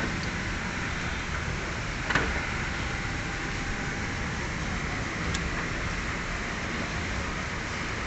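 Steady background noise with a sharp click about two seconds in and a faint tick about five seconds in, from a radiator seal strip and parts being handled during a car radiator refit.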